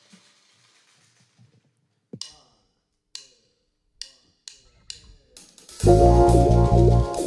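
Five or six single drum and cymbal hits about a second apart as the drummer counts the band in. About six seconds in, the full band enters loudly with bass guitar, electric guitar and drum kit playing a steady groove.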